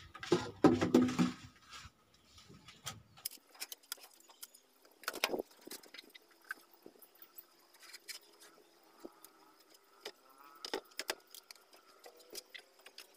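Hands working wet mortar and wood inside a sink's drain opening. A loud rustle or thump comes first, followed by scattered light knocks and scrapes.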